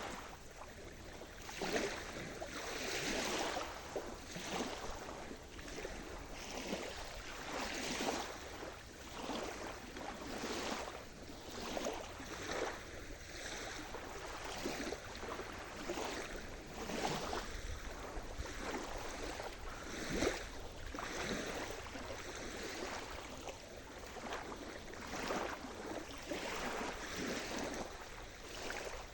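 Sea surf: small waves breaking and washing in, a continuous hiss of water with short surges every second or two.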